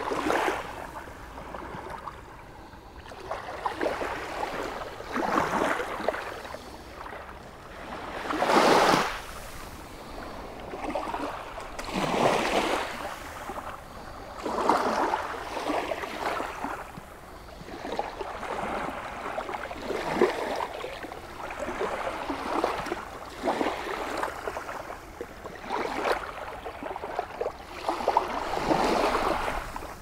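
Small sea waves washing up and running back over a shelly sandy shore, a new wash every few seconds, the loudest about nine seconds in.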